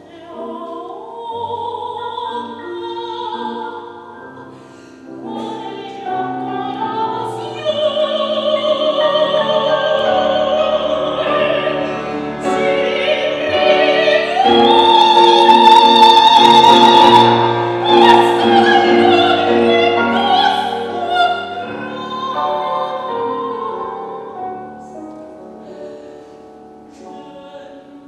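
Operatic singing with piano accompaniment, the voice held in long vibrato notes. It swells to a loud sustained high note about halfway through, then eases off.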